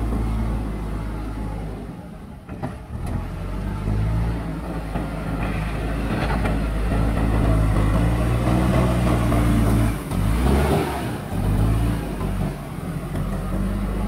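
JCB backhoe loader's diesel engine working under load, its pitch rising and falling as the front loader bucket pushes soil. The engine drops off briefly about two seconds in, then picks up again.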